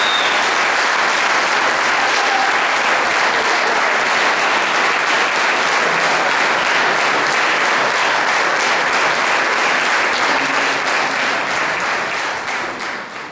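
Audience applauding steadily after a concert band piece, fading out near the end.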